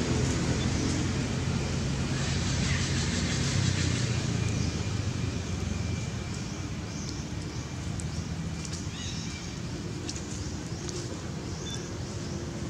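A low engine hum that fades after about five seconds, with faint high chirps from about six seconds on.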